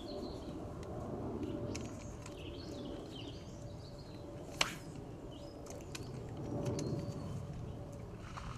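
Small birds chirping intermittently around the lake. About halfway through there is a single sharp swish as a float rod is cast out.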